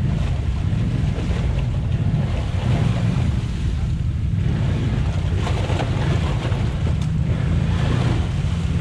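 ATV engine running steadily under load as it crawls through a muddy water hole, its tyres churning mud and water, with wind on the microphone.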